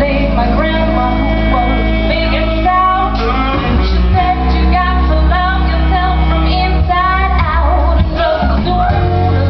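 Live band playing jazz, with a woman singing over held low bass notes.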